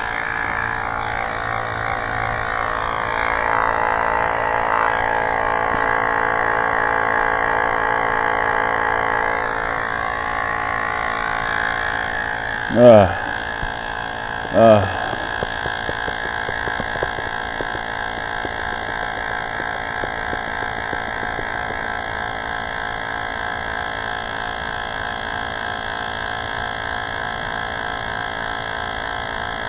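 A steady hum made of many tones, a little louder between about 3 and 10 seconds in, with two short voice-like sounds, such as groans, about 13 and 15 seconds in.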